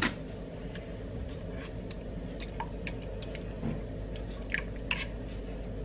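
Flour-thickened cream sauce simmering in a frying pan, bubbling softly, with scattered small pops and clicks.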